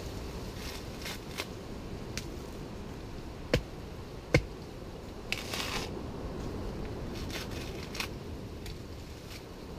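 Coconut husk being pried off a sharpened wooden stake by hand: dry fibres crackling and tearing in short bursts, with two sharp knocks a little under a second apart about three and a half seconds in, and a longer rip of fibre shortly after.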